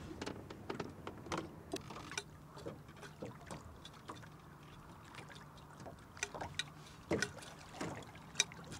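Small boat trolling on choppy water: water lapping and slapping against the hull over a low, steady motor hum, with many scattered short clicks and knocks from the fishing gear and boat being handled.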